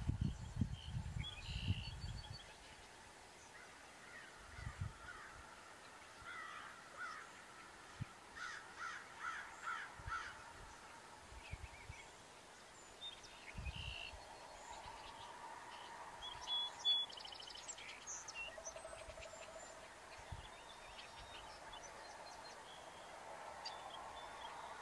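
Outdoor ambience with birds calling: scattered short chirps and a run of about six repeated calls around eight to ten seconds in, over a faint steady hiss. A few low rumbles in the first couple of seconds.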